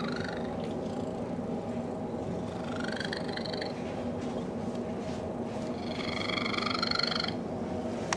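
A domestic cat purring with an unusual rough, continuous rumble. High, squeaky rising notes break into the purr twice: briefly about three seconds in, and longer and louder near the end.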